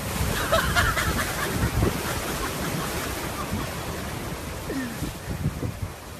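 Heavy surf churning and breaking against a rock ledge, with wind buffeting the microphone; loudest in the first couple of seconds, then easing off a little.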